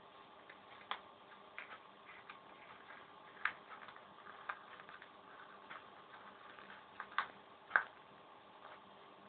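Sheet of paper being folded and creased by hand: irregular soft clicks and taps, a few sharper ones, over a faint steady hum.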